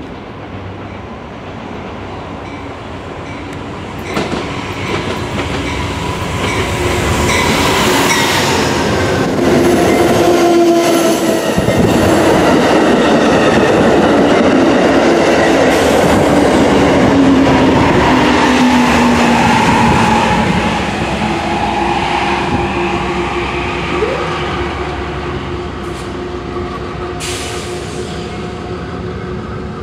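A two-car Metra commuter train, led by a sloped-nose EMD F40PHM-2 diesel locomotive pulling bilevel coaches, approaches, passes close at speed and pulls away, with engine and steel wheels running on the rails. It grows louder from about four seconds in, is loudest through the middle, and fades toward the end.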